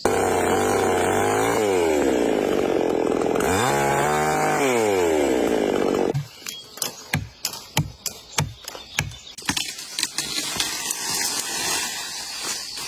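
A small engine running and revving, its pitch sweeping down and back up, then cutting off abruptly about six seconds in. Irregular sharp knocks follow, a few each second.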